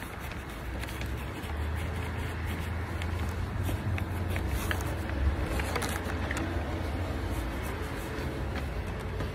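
A low, uneven rumble with a few faint clicks: wind and handling noise on a handheld phone microphone.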